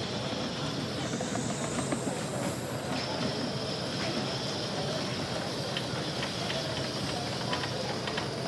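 Gas-fired live steam 16 mm narrow gauge model locomotive hissing steadily, with a few faint clicks later on.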